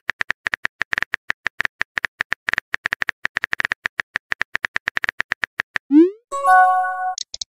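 Rapid clicks of a phone keyboard's typing sound, about ten a second, as a text message is typed. About six seconds in, a quick rising swoop and a bright chime follow: the message-sent sound.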